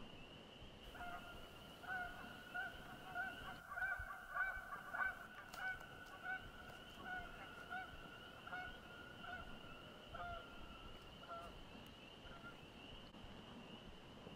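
Geese honking, a run of short calls about two a second that swell and then fade away over some ten seconds, over a steady high-pitched trilling chorus.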